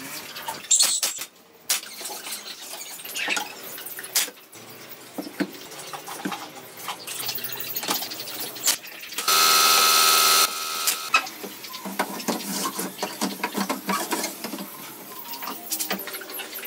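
Woodworking on a pallet-wood armchair: wooden boards knocked and set into place, sharp clicks and taps such as a pneumatic nailer firing, and a power tool running loudly for about a second just past the middle.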